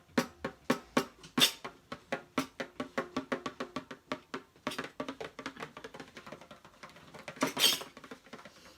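Short instrumental music interlude: a quick, even run of sharply struck notes, about four a second, with a few louder accents.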